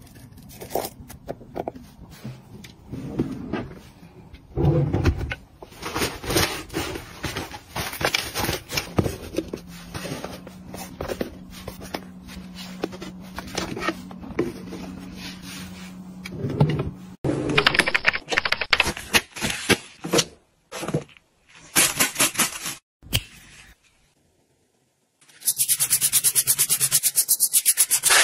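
Close handling sounds of tidying: jewelry and small items clicking and rustling as they are set into trays and a drawer. After a brief silence near the end, a sponge scrubs a foamy sink in rapid, even strokes.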